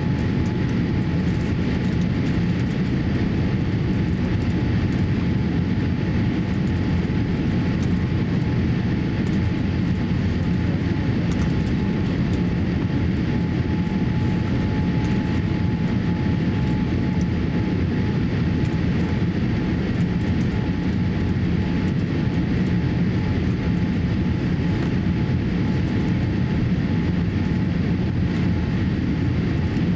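Steady cabin noise inside a Boeing 787-8 airliner on final approach: a low rumble of engines and airflow with a thin steady whine over it.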